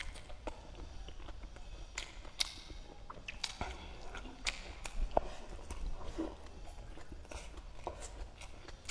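A person chewing and biting a mouthful of food close to the microphone, with irregular wet mouth clicks and smacks.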